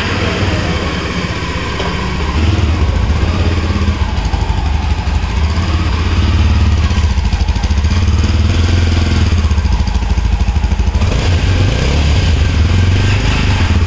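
Yezdi Adventure motorcycle's 334 cc single-cylinder engine idling, its exhaust note a steady, rapid low pulsing that gets louder about two seconds in.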